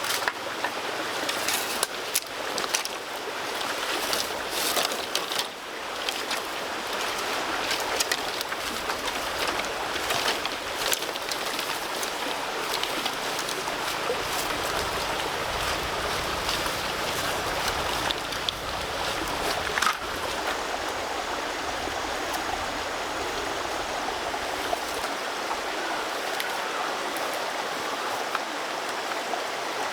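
Steady rush of running water, with scattered clicks and knocks over the first dozen seconds or so.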